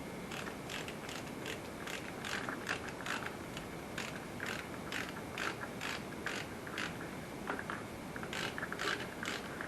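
Ratchet wrench clicking in short runs as the fuel pump's mounting bolts are tightened down.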